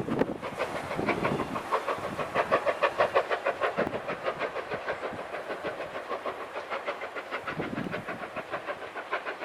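Steam locomotive working along the line, its exhaust beats coming fast and even at about six a second, loudest about three seconds in.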